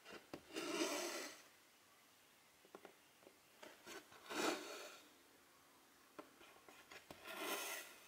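Silk embroidery thread drawn through 11-count cross-stitch fabric: three long pulls, each under a second and about three and a half seconds apart, with small ticks of the needle between them.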